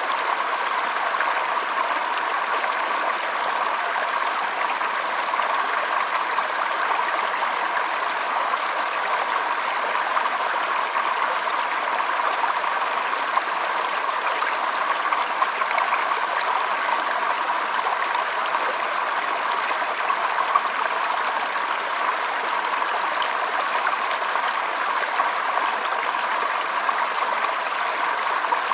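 Shallow stream trickling and flowing steadily over stones, a constant babble of water.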